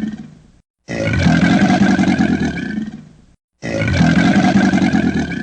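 Crocodile growl: a low, rumbling call about two and a half seconds long, played as the same clip over and over. The tail of one fades out at the start, then two full growls follow after short silent gaps, the last one still fading at the end.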